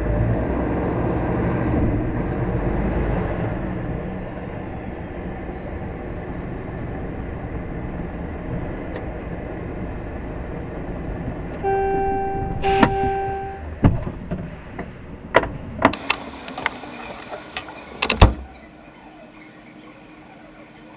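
Lorry's diesel engine running as it creeps up to a gate barrier. About twelve seconds in a pitched tone sounds for about a second and a half, then a run of sharp clicks and knocks follows. The engine cuts out at the loudest knock, about 18 seconds in.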